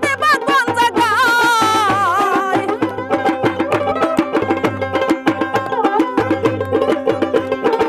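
Bengali Baul folk music: a dotara plucking a quick melody over a steady drum beat and hand claps. A woman's voice holds a wavering sung phrase about a second in, then the instruments carry on alone.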